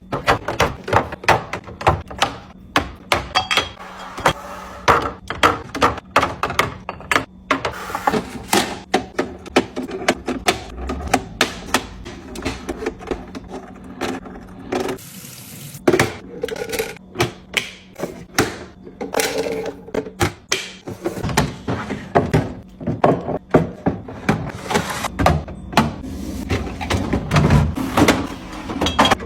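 Fridge restocking: a quick run of clicks, taps and thunks as plastic organiser bins, bottles and jars are handled, set down and closed. About halfway there is a brief rush of running water as berries are washed.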